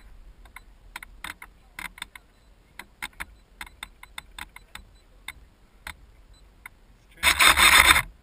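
Irregular clicks, taps and rubs of the foam R/C plane's airframe being handled, carried through the camera mounted on it. Near the end a much louder rushing noise lasts about a second.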